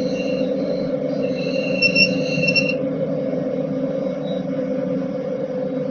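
Metal lathe running steadily while machining an EN8 steel workpiece held in a collet chuck, with a high-pitched squeal from the tool in the cut over the first three seconds.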